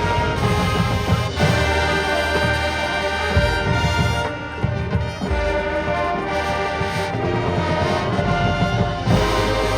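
High school marching band playing its competition show music: the brass section sounding sustained chords over bass drums and percussion.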